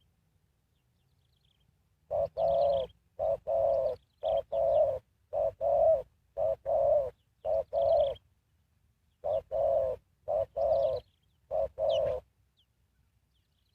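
Spotted dove cooing: after about two seconds of quiet, two runs of short, low, repeated coo notes, separated by a brief pause.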